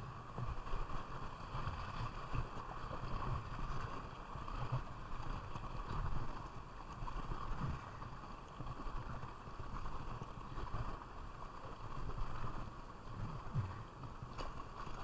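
River water rushing and splashing steadily around a kayak on moving current.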